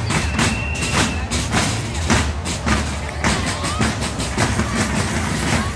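Marching drums played by a parading drum troupe, beating a steady rhythm of sharp strikes about twice a second, with crowd voices around.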